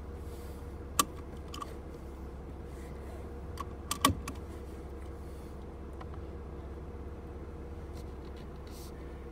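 Low steady drone of an off-road Jeep's engine heard from inside the cabin, with a single sharp click about a second in and a short cluster of clicks and a knock around four seconds in.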